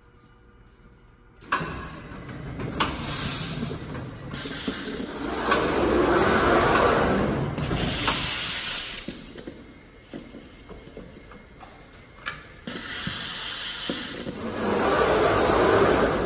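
Automated jug palletizer cycling: its gantry and gripper drives run in two long swells of whirring noise, with sharp clicks and knocks as the gripper grabs a plastic jug and sets it down on the pallet. It starts suddenly about a second and a half in.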